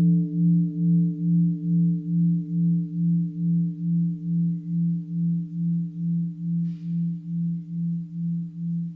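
A Buddhist mindfulness bell rings out after being struck. Its low tone slowly fades, wavering evenly about two and a half times a second.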